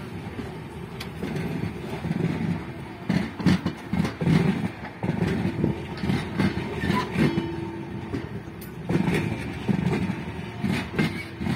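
Indian Railways passenger coaches rolling past at close range: a steady rumble of wheels on rail, broken by groups of sharp clacks as the bogies cross rail joints.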